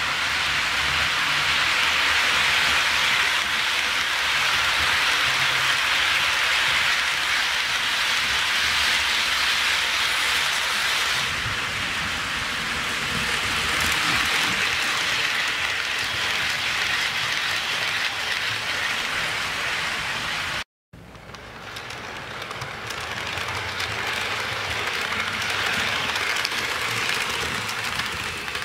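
HO scale model freight train, led by a GE Dash 9 locomotive, rolling along the track: a steady rushing hiss of many small wheels on the rails. It cuts out for a moment about two-thirds of the way through, then comes back softer and builds again.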